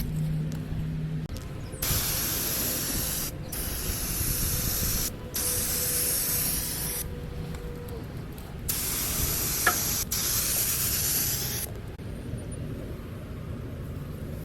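Hissing spray let out in four bursts, each lasting one and a half to three seconds with short breaks between, the last one the longest.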